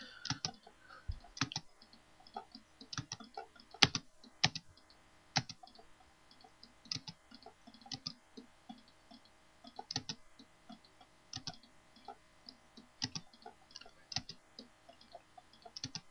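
Computer mouse clicks and keyboard space-bar taps, repeating at a steady pace as the TABSURF command is run over and over. The clicks come mostly in close pairs about every second and a half, with one sharper click about four seconds in.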